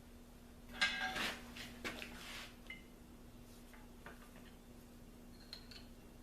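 Loose metal parts being handled and set down, clinking against each other; one piece rings briefly about a second in, followed by more clinks and a few lighter ticks. A steady low hum runs underneath.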